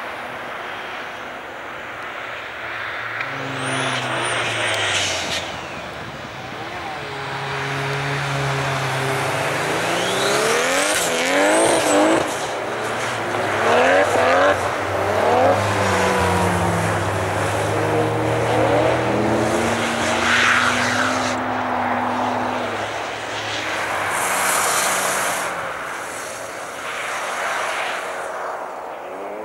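Car engine revving hard while the car drifts on snow. The pitch climbs and drops back repeatedly, with several quick steep rises in the middle as the driver keeps the wheels spinning through the slide.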